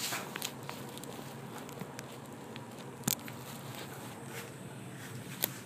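Handling noise from a phone being set down and propped up on a workbench: rubbing and scuffing with scattered clicks and taps, and one sharper knock about three seconds in, over a faint low steady hum.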